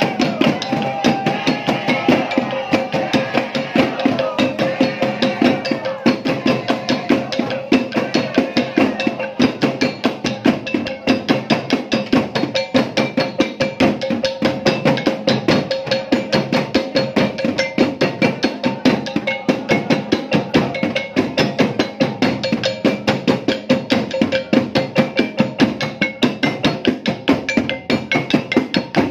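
Traditional percussion music: fast, steady strikes on a wooden-keyed xylophone with other percussion over a steady ringing tone. Voices can be heard over it in the first several seconds.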